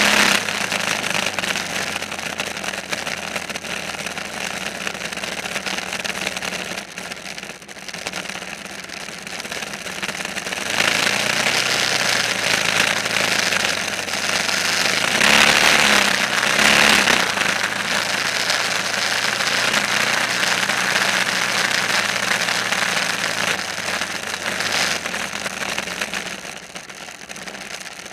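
An engine running steadily, growing louder about eleven seconds in, loudest for a couple of seconds soon after, then easing off near the end.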